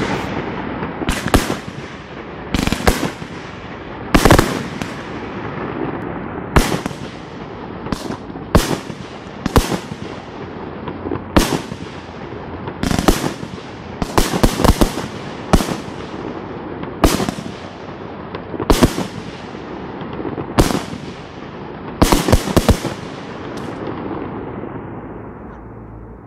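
Aerial fireworks shells bursting: about twenty sharp bangs, one every second or two and sometimes two or three in quick succession, each trailing off into a rumble. The bangs stop near the end, leaving a fading rumble.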